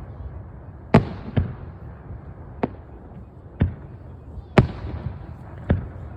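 Aerial firework shells bursting overhead: six sharp bangs at uneven intervals, a few of them followed by a brief echo, over a steady low rumble.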